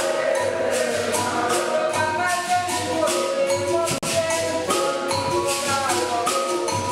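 Capoeira roda music: jingling hand percussion keeps a steady beat under pitched instruments and sung voices. The sound drops out sharply for an instant about four seconds in.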